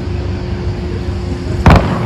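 An aerial firework shell bursting with one sharp bang near the end, over a steady low rumble.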